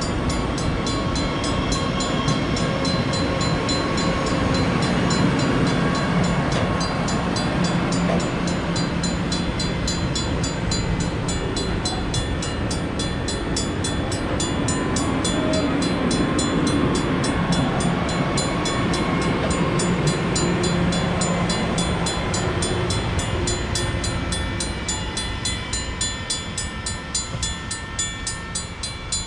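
Passenger coaches of an AMT commuter train rolling past close by, with a steady rumble and clatter of wheels on the rails. The sound eases over the last few seconds as the rear cab car pulls away.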